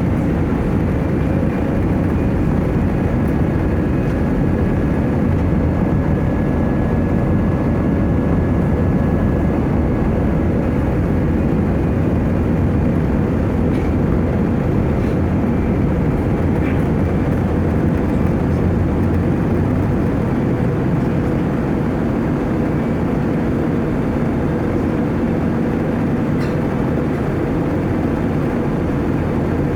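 Airbus A320 jet engines running at a steady, loud level: a continuous even rumble with a faint steady whine above it.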